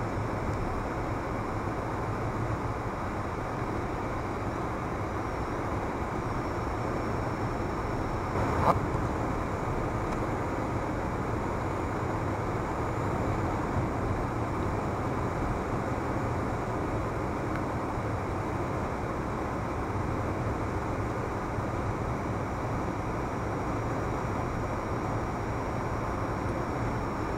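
Steady road and engine noise of a car driving at cruising speed, heard from inside the cabin. A single sharp click about a third of the way in.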